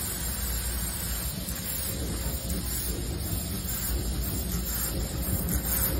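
5 kW Trumpf TruMatic L3050 CO2 laser cutter running: a steady low hum with hiss over it as the cutting head works over the sheet.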